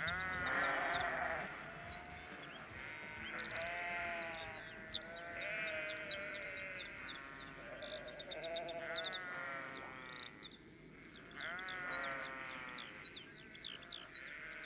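Sheep bleating, about seven drawn-out bleats a second or two apart, with quick high chirps scattered over them: recorded sheep sound effects with the band's music faded out.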